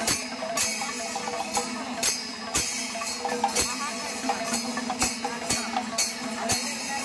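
Temple-festival percussion: sharp drum strokes about twice a second with jingling hand cymbals, over crowd voices and a steady low drone.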